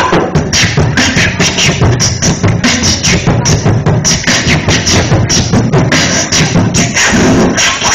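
Beatboxing: a fast, dense run of vocal percussion strokes over a continuous low bass.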